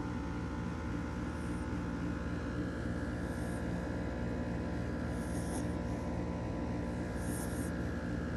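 Shih Tzu puppy snoring softly in her sleep, a breath about every two seconds, over a steady droning hum.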